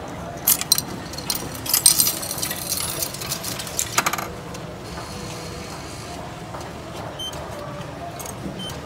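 Coins fed one after another into a railway ticket vending machine's coin slot, clinking and rattling into the mechanism for about four seconds. Near the end the machine gives two short beeps.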